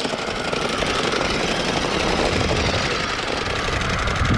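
Battery-powered RC monster truck's electric motor and gearbox running under load as it climbs a concrete skatepark ramp, with its big rubber tyres rumbling and grinding on the rough concrete in a steady gritty rattle.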